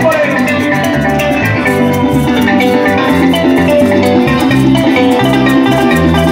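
Live joropo llanero band playing an instrumental passage between sung verses: llanero harp and cuatro plucking fast runs over an electric bass, with maracas shaking a steady, even rhythm.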